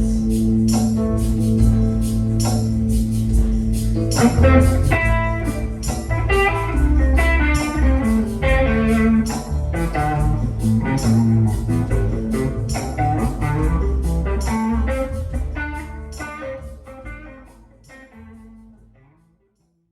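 Instrumental ending of a rock band song: guitars over bass and a steady beat of percussion, fading out over the last few seconds.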